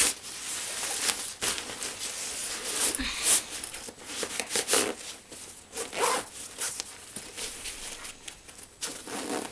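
A zipper being worked and rustling nylon on the black pouch of a folded collapsible photo reflector, in irregular scratchy strokes.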